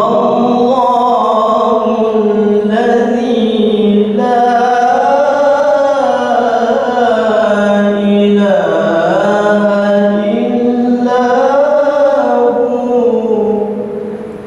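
A male qari chanting Quranic recitation: one long, unbroken melodic phrase, the voice holding and bending its pitch in ornate turns, fading out near the end.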